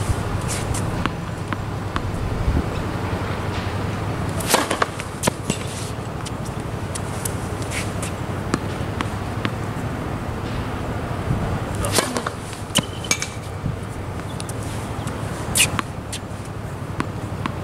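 Outdoor court ambience with a steady low hum, broken by a few sharp knocks of tennis balls bouncing on the hard court and meeting rackets, in small clusters about a quarter of the way in, about two-thirds of the way in, and once more near the end.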